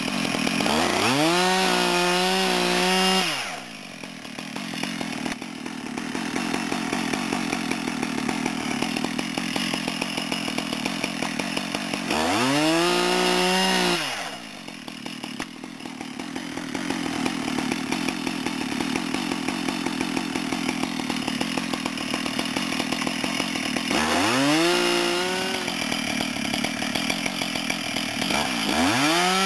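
Husqvarna 570 70cc two-stroke chainsaw with a 28-inch bar cutting down through a stack of split logs. Three times the saw revs up to a high steady pitch for a couple of seconds, then drops lower and rougher under load for about ten seconds as the chain cuts through the stack; a fourth rev-up starts near the end.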